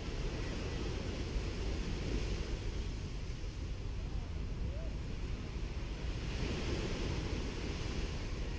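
Gentle Caribbean Sea waves washing onto a sandy beach, a steady surf wash that swells once about six and a half seconds in, over a low rumble of wind on the microphone.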